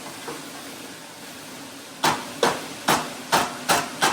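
A run of about six sharp knocks, two or three a second, starting about halfway through, over a low steady sizzle of vegetables cooking in the pot.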